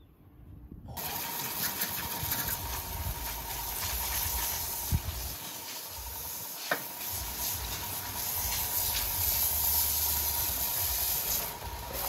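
Sawmill machinery starts up about a second in and runs steadily: a loud hiss with a steady high whine, and two sharp knocks near the middle.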